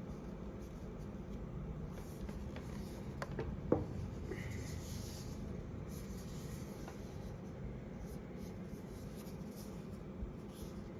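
Light handling of a boxed hairdryer and its packaging: rustling and rubbing with a few soft taps, and one sharp click a little under four seconds in.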